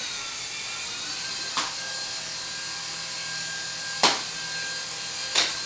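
Small propellers of a hovering light-up levitating sphere toy running with a steady whir. There are three sharp knocks, the loudest about four seconds in, as the sphere bumps against the dishwasher.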